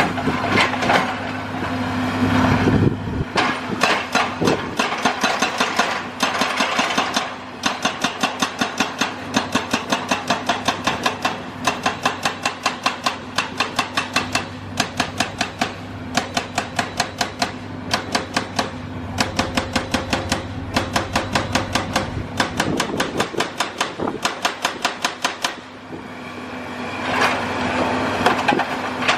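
Excavator-mounted hydraulic breaker hammer pounding concrete: rapid, evenly spaced blows in runs of several seconds with short pauses between them, over the excavator's diesel engine running steadily.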